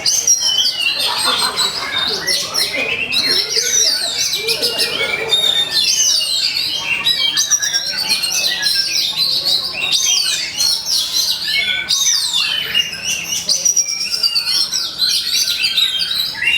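Oriental magpie-robin (kacer) singing nonstop in a loud, varied stream of quick whistles, chirps and harsh notes, with fast rising and falling glides. This is the agitated, fight-ready song that keepers play to provoke other magpie-robins into singing.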